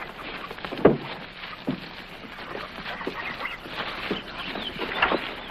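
Horses shifting and stamping in place: irregular hoof knocks, the loudest about a second in, with creaking and faint squeaks.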